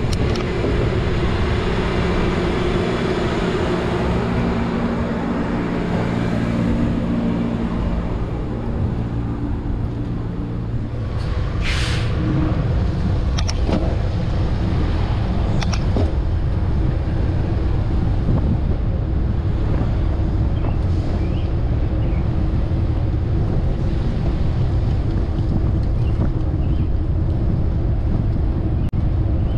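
Street traffic heard from a moving bicycle: a large vehicle's engine running close by for about the first ten seconds, a short hiss a little after that, then a steady low rumble of road and wind noise.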